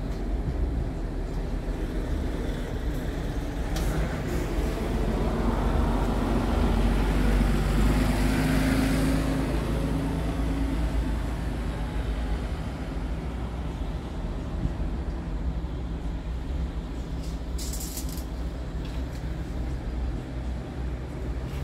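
Diesel engine of a Scania R tractor unit idling steadily, with a broad swell of noise that peaks about halfway through and two short hisses of air, one about four seconds in and one near the end.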